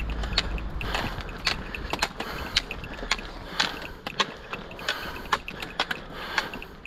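Trekking pole tips clicking on a paved path in a steady rhythm of about two sharp strikes a second, with walking footsteps.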